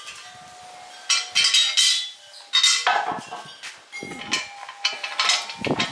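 Metal square-tube parts of a homemade panel rotisserie stand clanking and rattling against each other as they are handled and fitted onto the stand's upright post: a run of irregular knocks, some with a brief metallic ring.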